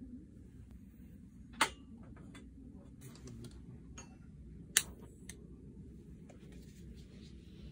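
Two sharp clicks about three seconds apart, with a fainter one just after the second, over a low steady rumble.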